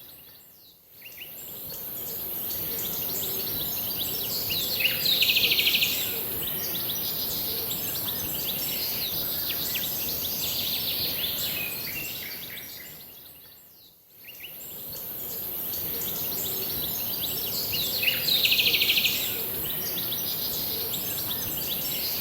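Birds chirping over a steady high hiss, with a loud rapid bird trill about five seconds in and again near 19 seconds. It is the same stretch of birdsong played twice, fading briefly almost to silence about a second in and again around 14 seconds.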